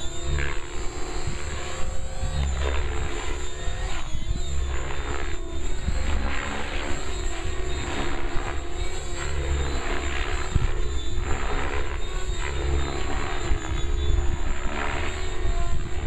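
Compass 6HV electric radio-control helicopter in flight, its main rotor blades whooshing in repeated surges every second or two as it manoeuvres, over a steady low rumble.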